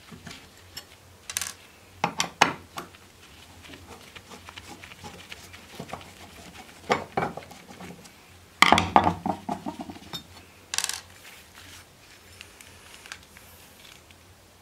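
Metal clinks and short rattles as a knife blade is unclamped from a workbench: a screwdriver turning and knocking at the clamp screws, with steel parts clattering against each other and the wood. The loudest clatter comes about nine seconds in, with smaller clicks before and after.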